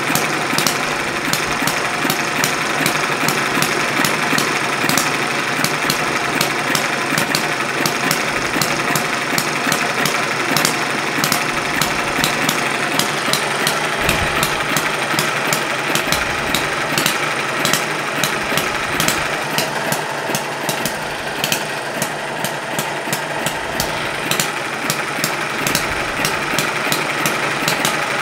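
Small Chinese four-stroke model hit-and-miss engine running on the bench, with a fast, steady clatter of firing strokes and valve clicks.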